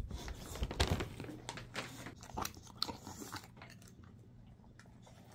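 English bulldog crunching and chewing a dried bison lung cube treat: a run of crisp crunches, loudest about a second in, tapering off to faint chewing after about three and a half seconds.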